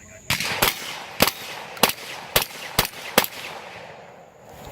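Shotgun fired seven times in a quick string, about two shots a second, each a sharp crack with a short echo.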